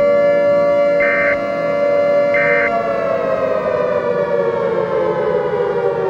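Civil defense siren sounding a steady tone as a warning of incoming nuclear attack, its pitch sinking slowly over the last three seconds. Short higher beeps sound over it about every second and a half in the first three seconds.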